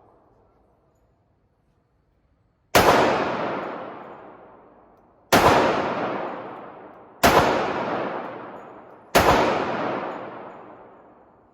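Four .45 ACP shots from a case-hardened Auto-Ordnance 1911 pistol, fired about two seconds apart, each sharp report followed by a long echo dying away.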